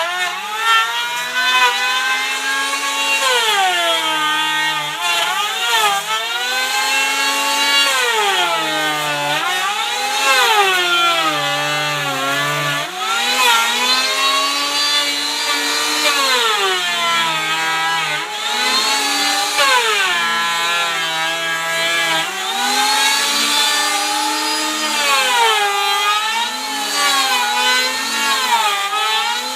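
Electric power tool cutting wood. Its motor pitch repeatedly drops and climbs back up every couple of seconds as the cut loads it.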